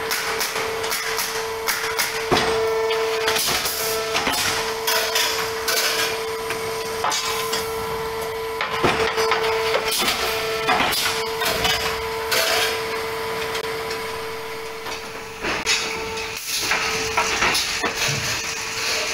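Olimpia Chiodatrici T30 hydraulic pallet nailing machine and its roller conveyor line running: a steady mechanical hum under irregular sharp knocks and clatter of wooden pallets and nailing, roughly every one to two seconds.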